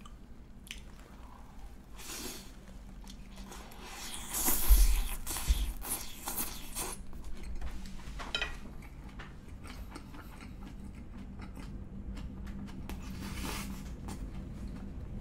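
A person chewing a mouthful of Big Mac roll, a cut roll of burger with avocado and tomato, eaten with shredded lettuce, with crunching bites. The crunching is loudest about four to seven seconds in and continues more softly afterwards.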